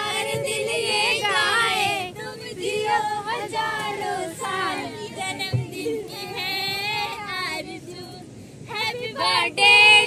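Young women's voices singing a song together, high-pitched, the melody gliding between notes.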